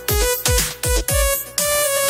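Instrumental break of an electronic dance-style regional Indian song: a steady beat of deep kick drums that drop in pitch on each hit, under held synth notes, with no singing.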